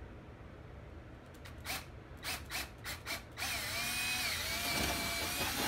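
Handheld cordless drill working into the plastic inner fender panel: about five short trigger blips, then a steady run from about halfway in, its motor whine dipping slightly as it takes load.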